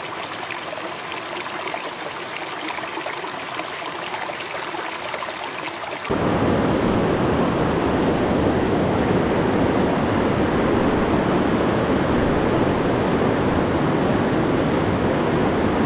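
Shallow river water lapping and splashing around trout held in the current for release. About six seconds in it changes abruptly to a louder, steady rush of river riffles.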